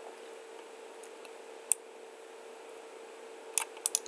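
Keystrokes on a computer keyboard: a single sharp click about two seconds in, then three quick clicks near the end, over a faint steady hum.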